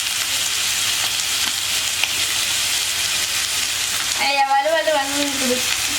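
Onion and ginger-garlic masala frying in oil in a pan on a high flame, a steady sizzle with a few light clicks, the masala starting to catch on the bottom of the pan.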